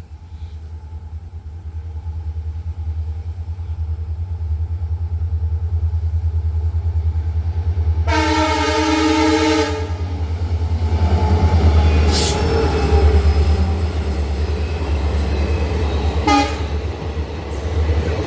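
WDP4 diesel locomotive (EMD GT46PAC) approaching with a low rumble that grows steadily louder, then sounding its horn in one held chord for about a second and a half. As it passes, a loud rushing rail noise takes over, with a brief horn toot near the end.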